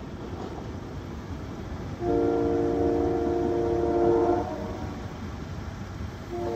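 SEPTA Silverliner V train horn sounding a multi-note chord: one long, loud blast about two seconds in, and a second blast starting near the end.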